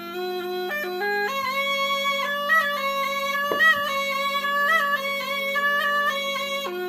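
Been (pungi), the snake charmer's reed pipe, playing a melody that steps between held notes over a steady, unbroken drone.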